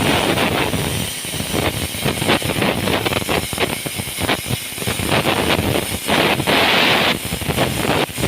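Cutting torch hissing with a rough crackle, the level rising and falling, as it cuts a hole through steel plate.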